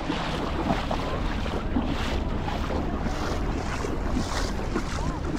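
Wind buffeting the microphone over a steady wash of sea surf on a beach, with a low rumble and gusts that come and go.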